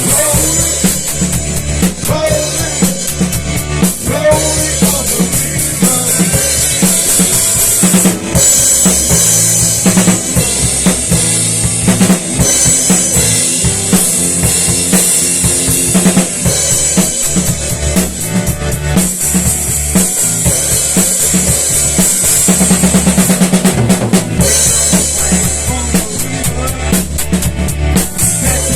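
Rock music in an instrumental stretch driven by the drum kit: kick drum, snare and cymbals over a bass line, with a run of rapid drum hits about three-quarters of the way through.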